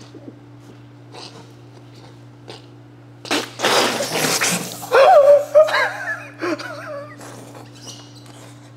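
A person bursts out and sprays a mouthful of water in a sudden spluttering spray about three seconds in, then breaks into laughter.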